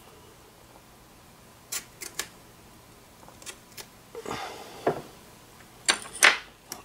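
Blue painter's tape being handled: a few light clicks, then strips pulled off the roll and torn, short rasping rips in the second half, the loudest near the end.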